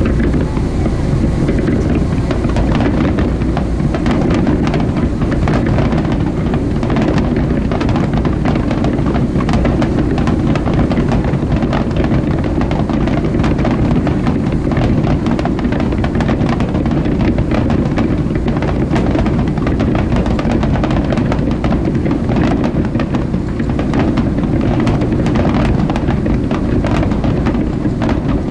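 Steady low rumble of wind on the microphone aboard a boat, with many faint crackles scattered throughout.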